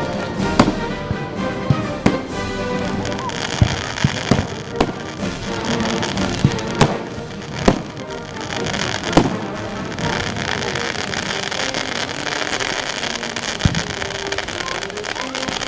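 Fireworks display: aerial shells going off in repeated sharp bangs at irregular intervals, over music played alongside the show. From about three seconds in a steady hiss joins the bangs.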